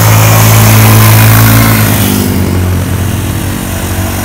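ATV engine running steadily, its pitch holding level, with a broad hiss over it that fades about two seconds in.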